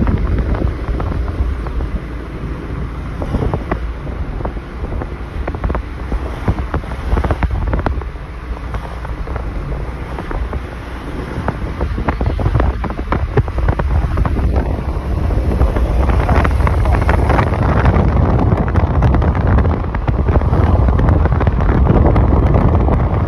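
Wind buffeting the microphone as a low rumble over street traffic noise, growing louder about two-thirds of the way in.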